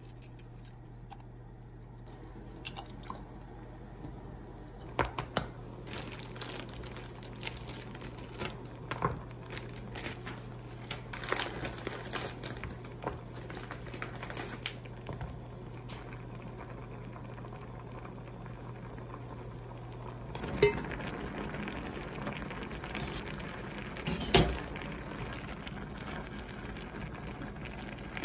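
Kitchen cooking sounds: boiled eggshells cracking and being peeled, a plastic bag crinkling as rice cakes are tipped into a pot of tteokbokki sauce, and the sauce simmering. Scattered small clicks fill the middle, a steady low hum stops about twenty seconds in, and two sharp knocks against the pot come near the end.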